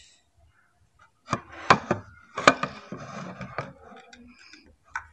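Potato chips crackling and clicking as hands pick through them in ceramic plates, in a busy cluster about a second in, with the sharpest cracks near the middle, then a few fainter ticks.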